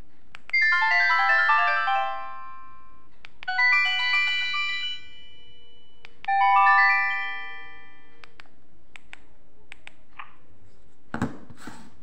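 itel Ace feature phone's built-in message tones previewed one after another: three short electronic melodies of quick stepped notes, each a second or two long, with faint keypad clicks between them. Near the end, a brief handling bump and rub.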